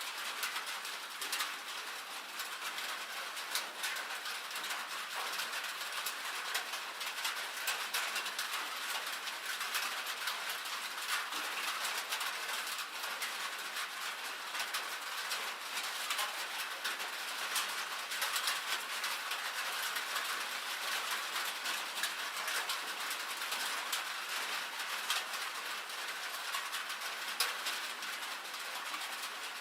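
Rain and hail falling on a metal roof: a dense, steady patter studded with many sharp ticks of hailstones striking the sheet metal.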